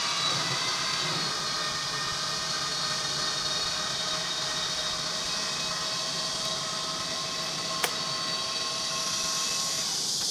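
Tracked robot chassis's electric drive motors and gearboxes whining steadily under a hiss as it climbs with its swing-arm tracks, the pitch of the whine drifting slightly lower. A single sharp click about eight seconds in.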